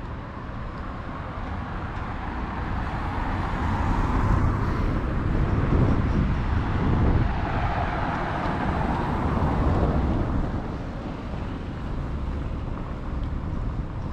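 Street traffic: a car drives past, its tyre and engine noise swelling and fading between about four and ten seconds in, over a steady low rumble.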